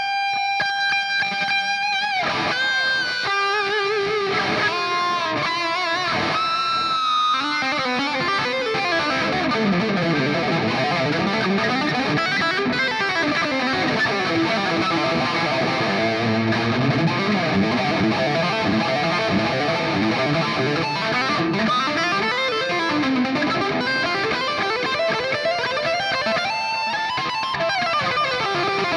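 Electric guitar played through a NUX MG-30 multi-effects processor, starting suddenly with a few held lead notes, then fast runs sweeping up and down in pitch.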